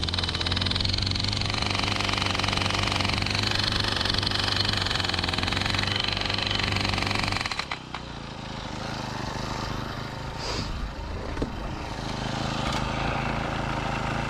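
Rhino gas-powered post driver running and hammering rapidly, stopping suddenly about seven and a half seconds in; a quieter engine sound carries on after.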